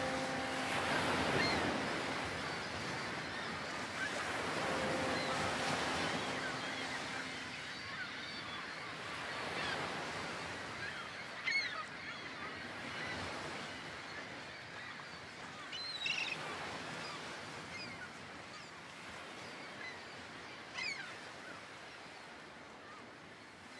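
A steady rushing noise like surf or wind, slowly fading, with a low held tone near the start and again around five seconds in. Three short, high calls come about five seconds apart in the second half.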